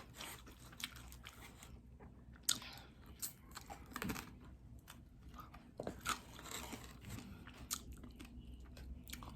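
A person chewing and biting crunchy food close to the microphone: irregular crisp crunches and wet chewing, the sharpest crunches about two and a half and four seconds in.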